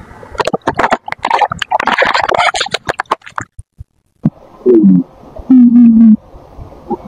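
Plastic soda bottle crackling and crunching under a car tyre, with a hissing spray as the cola bursts out about two seconds in. After a short break come two loud short squealing tones, the first falling in pitch, the second held steady.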